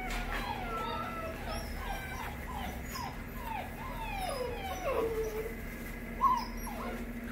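Great Pyrenees puppies whimpering and whining, many short falling cries overlapping one another, with one sharper, louder yelp about six seconds in.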